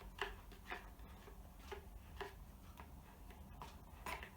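Faint, uneven clicks of a spoon knocking against the side of a cup as slime is stirred, each click with a short ring, roughly one or two a second.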